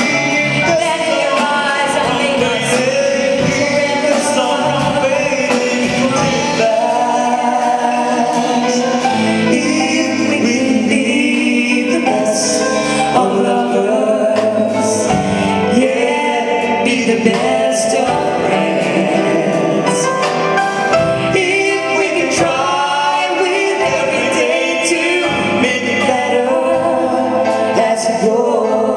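A live band playing a song with singing over it, drum and cymbal hits keeping the beat.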